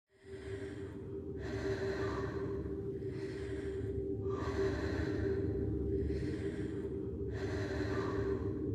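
Slow, deep breathing: about three long breaths in and out, each half-breath lasting about a second and a half. A steady low hum runs underneath.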